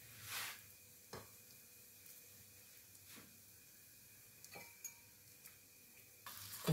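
A few faint, light taps and ticks of kitchen handling over a quiet room. Near the end, hot oil suddenly starts sizzling loudly as a shami kebab fries.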